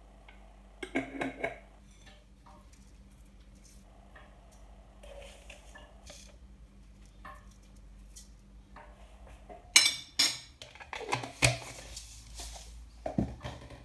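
Metal cutlery and dishes clinking and clattering: a short cluster of clinks about a second in, then a louder run of clinks and knocks from about ten seconds in.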